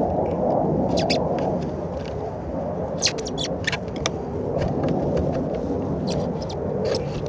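A hand tool working along an RV skylight's sealed roof flange, making a scattered series of short scrapes and clicks, in small clusters about a second in, around three to four seconds in and near the end. Under them runs a steady rumbling background noise.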